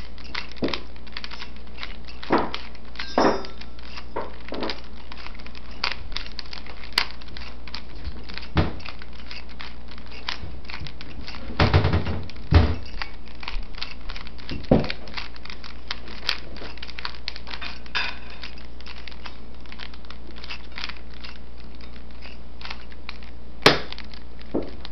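Plastic 3x3 Rubik's cube being turned by hand: a fast, dense run of small clicks and rattles as the layers are twisted, with a few louder knocks.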